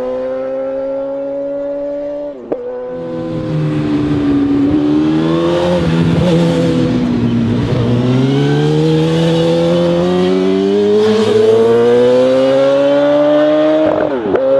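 PGM V8 motorcycle's 2-litre V8, built from two Yamaha R1 engines, revving under acceleration: its note dips sharply about two seconds in, falls and rises again, then climbs steadily for several seconds before dropping suddenly near the end.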